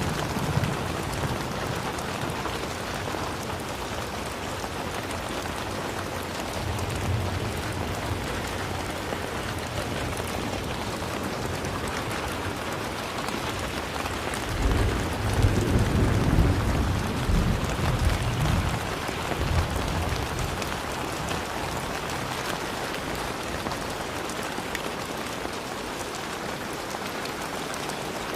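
Steady, heavy rain falling, an even hiss of drops on surfaces, with a low rumble swelling for a few seconds about halfway through.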